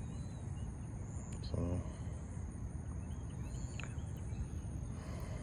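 Steady high-pitched chirring of insects in the background, with a few faint short chirps. A brief murmur of a man's voice about a second and a half in.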